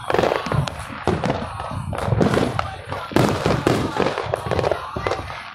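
Fireworks going off all around: a dense, irregular run of bangs and crackling pops from aerial bursts, with a sharp, loud bang about three seconds in.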